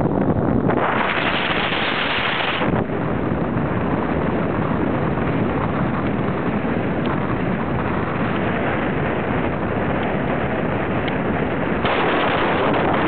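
Wind buffeting the microphone: a steady rushing noise, with a stronger gust about a second in and another near the end.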